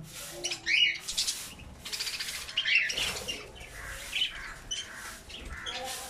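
A flock of budgerigars chirping, many short high calls overlapping, with a few louder squawks about a second in and around three seconds in.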